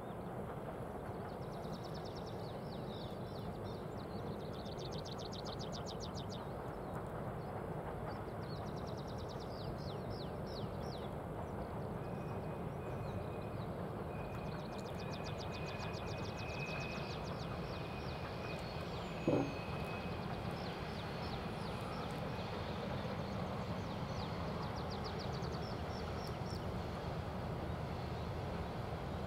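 Songbirds trilling in short bursts every few seconds over a steady low rumble and hiss. A thin steady whistle runs for several seconds in the middle, and one brief sharp sound comes about two-thirds of the way through.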